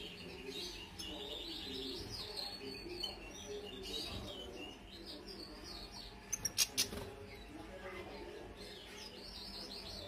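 European goldfinch twittering in short, quick chirping phrases, with a quick run of three or four sharp clicks a little past halfway.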